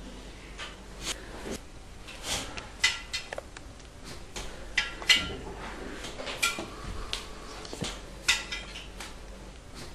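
Irregular light metallic clinks and knocks, a few with a brief ring, the sharpest about five seconds in.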